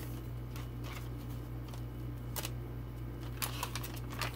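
Paper pages and cardstock cards of a handmade junk journal being handled and flipped: soft scattered rustles and light taps, a quick cluster a little past three seconds in and another near the end, over a steady low hum.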